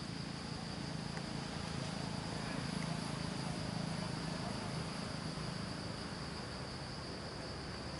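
A chorus of forest insects drones in a steady, high-pitched band, with a low rumble underneath that swells slightly in the middle.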